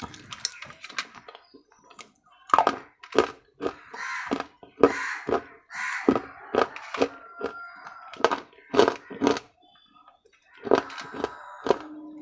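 Hard, brittle food being bitten and crunched close to the microphone: a long irregular run of sharp loud cracks with short gritty chewing between them, pausing briefly about ten seconds in.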